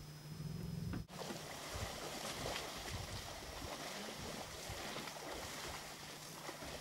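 Elephants wading through a shallow muddy pool: irregular sloshing and splashing of water and mud around their feet, beginning abruptly about a second in, over a faint steady low hum.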